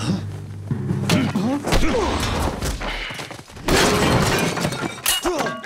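Film fight sound effects: a few sharp hits, then a loud crash of a wooden table breaking apart about four seconds in.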